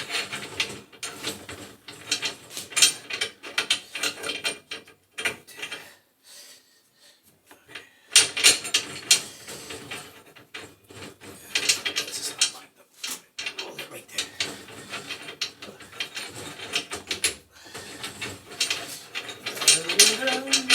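A hand wrench working a threaded metal fitting of the boiler's gas line, with bursts of metal scraping and clicking and a short pause about six seconds in.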